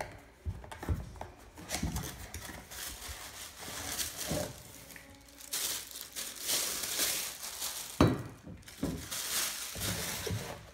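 Thin plastic bag crinkling and rustling as it is pulled off a stainless steel shaker bottle, in irregular bursts. A single sharp knock about eight seconds in, as the bottle is set down on the table.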